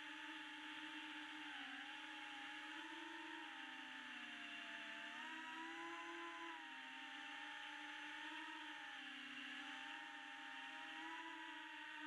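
FPV quadcopter's motors whining steadily, the pitch drifting up and down a little as the throttle changes.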